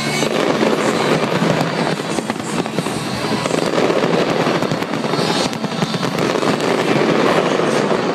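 Fireworks display in full swing: a dense, continuous barrage of overlapping bangs and crackling, with no let-up.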